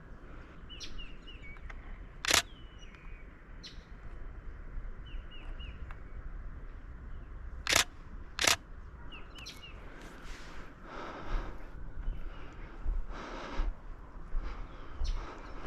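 DSLR shutter firing three single shots: one about two seconds in, then two more close together about eight seconds in. Small birds give short, high chirps in the background.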